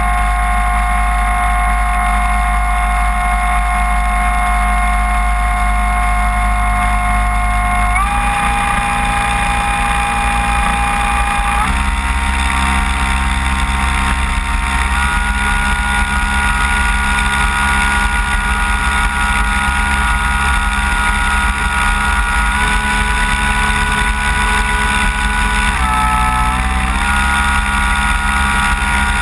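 Electric motor and propeller of a radio-controlled Cessna 185 floatplane, heard close up from on board, running steadily while it taxis on the water. The whine steps up in pitch about eight seconds in, falls back a few seconds later, and dips briefly near the end.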